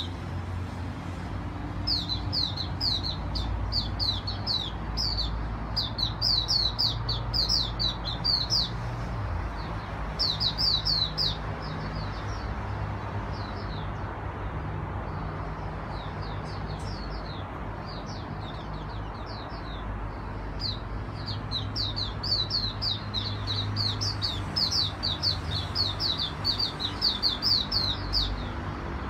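Caged songbird singing: rapid runs of high chirping notes, each sliding down in pitch, in bursts of a second or two with short pauses between, sparser in the middle. A steady low hum sits underneath.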